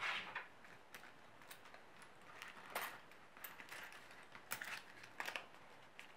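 Hands handling a plastic cash envelope and a budget binder: faint rustles and a few scattered light clicks and taps.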